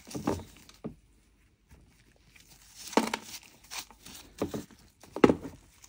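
Chunk of dry raw clay being scraped with a snap-off utility-knife blade and rubbed by a gloved hand: short, dry scraping and crumbling strokes, about six in all, with a pause early on.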